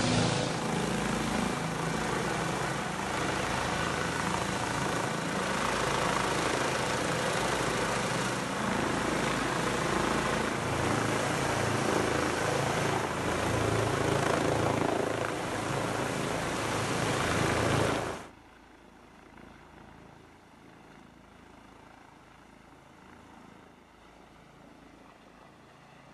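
Eurocopter EC135 helicopter hovering close by, its rotor and turbine loud and steady. About 18 seconds in the sound cuts off abruptly, leaving only a faint hiss.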